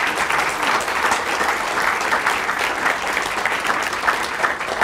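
Audience applauding, the dense clapping thinning a little near the end.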